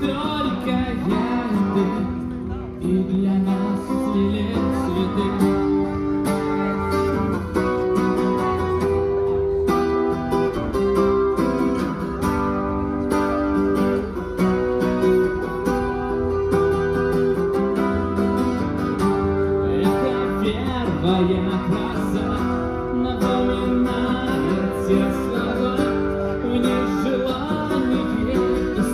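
Strummed acoustic guitar with a man singing over it, played through a microphone and amplifier.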